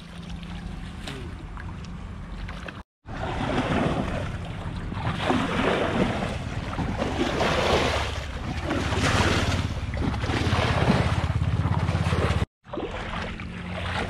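Shallow muddy stream water splashing and sloshing as hands grope through it by the bank, with wind rumbling on the microphone. The sound cuts out briefly twice.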